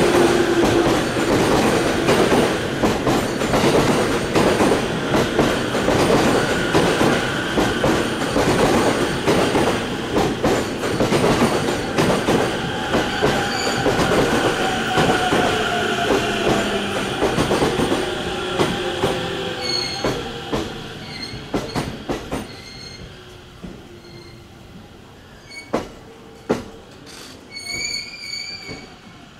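Electric commuter train running past and pulling away, its wheels clattering over rail joints with a falling tone as the sound fades into the distance. Brief high wheel squeals come near the end.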